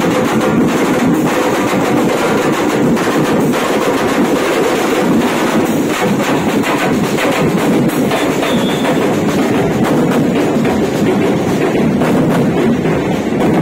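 Street drumbeater band of marching snare drums, large bass drums and cymbals playing a loud, continuous, rapid drum beat.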